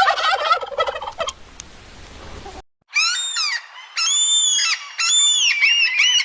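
A turkey gobbling: a quick rattling call, over in about a second. After a short break, a different bird gives three loud, drawn-out calls, the last breaking into quicker, shorter ones near the end.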